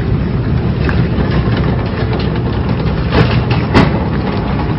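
Metal shopping trolley rolling over a smooth concrete floor: a steady rumble from the wheels with the wire basket rattling, and two sharper knocks a little past three seconds in.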